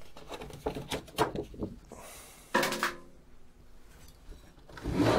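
Handling noise from the opened electronics unit: a few soft knocks and rubs, with a short pitched sound about two and a half seconds in and a louder rustle near the end.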